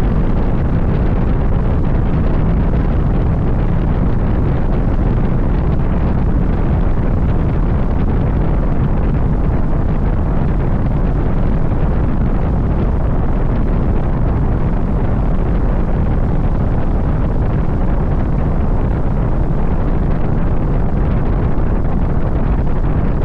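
Wind buffeting the microphone on a moving car: a steady, heavy low rumble with no breaks.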